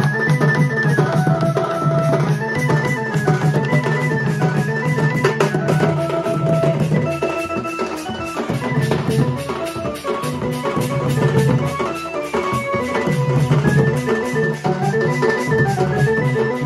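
Live band music: an electronic keyboard plays a stepping melody over fast, busy beating of stick-played barrel drums and clashing brass hand cymbals.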